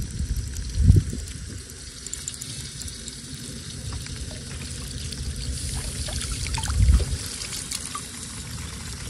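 River water trickling and splashing against the side of a wooden boat, with two dull low thumps, one about a second in and one near seven seconds.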